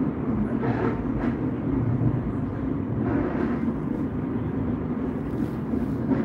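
Cologne Stadtbahn light-rail car running, heard from inside the car: a steady, mostly low running noise.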